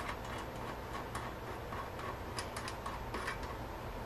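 Faint, irregular metallic ticks and clicks as a nut is spun by hand down the threads of a toilet closet bolt onto its washer.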